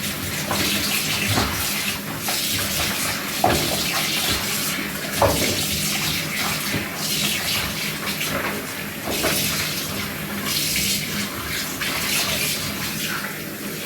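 Warm water running steadily from a tap, with a few short knocks along the way.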